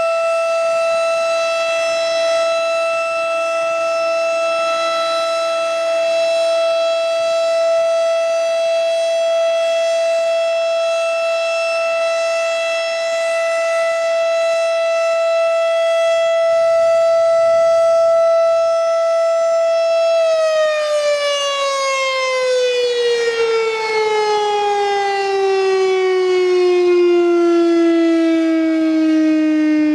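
Federal Signal Thunderbeam 12-port civil defense siren sounding a steady, high-pitched tone; about two-thirds of the way through, its pitch starts sliding steadily down as the siren winds down.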